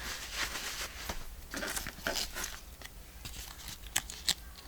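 Hands handling a paper journal and a small charm: soft rustling and light taps, with two sharp clicks close together near the end.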